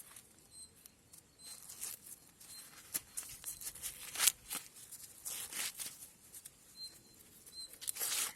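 Green husks being torn and peeled off a freshly picked ear of sweet corn: irregular rustling rips, the sharpest about four seconds in and near the end. Faint short high chirps recur in the background.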